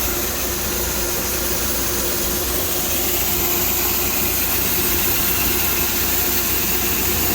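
A farm tractor engine running at a steady speed under a constant hiss and hum of machinery while corn is drawn out of the grain bin.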